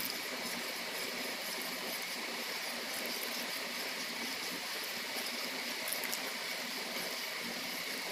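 Steel ladle slowly stirring hot milk in a steel pot, with faint swishing of the liquid and a light clink or two of ladle on pot, over a steady hiss. The milk is being curdled with lemon-juice water to make chhena.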